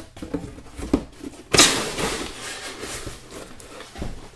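Cardboard sliding and scraping against cardboard as a corrugated insert is worked out of a shipping box, with a few light knocks, one loud rasping scrape about a second and a half in, and a soft thump near the end.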